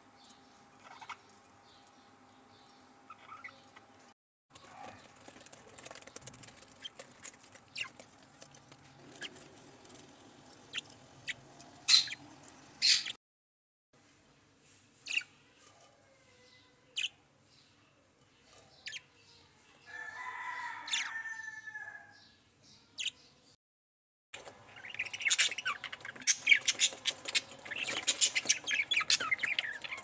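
Budgerigars chirping and chattering, with sharp clicks among the calls. There is one longer call about two-thirds of the way through, and a dense run of rapid chirping near the end.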